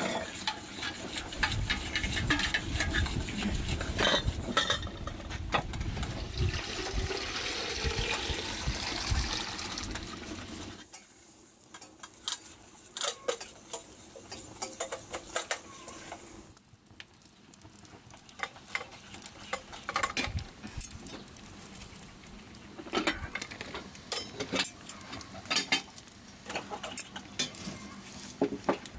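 Metal clinking and clanking as the lid and top parts of a samovar are handled. A dense, louder noise fills roughly the first ten seconds, and after that sharp separate clinks come at uneven intervals.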